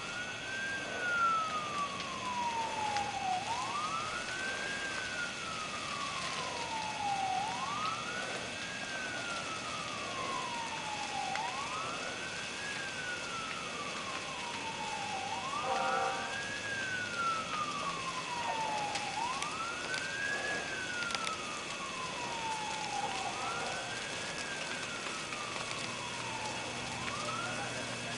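Emergency vehicle siren wailing: each cycle rises quickly and falls slowly over about four seconds, repeating steadily about seven times.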